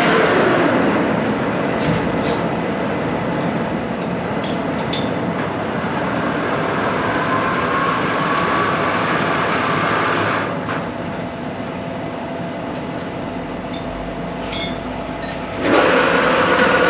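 Metalworking machine tool running, a steady mechanical noise with a few steady hums and occasional clicks; it quietens about ten seconds in and picks up again near the end.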